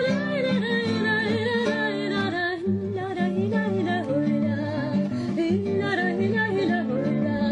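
Song in progress: a voice sings a wavering melody line, with guitar accompaniment beneath.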